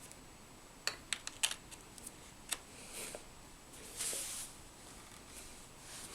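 Hands handling a VGA cable and mini DisplayPort adapter: a few light clicks and taps from the connectors, then a couple of soft rustles.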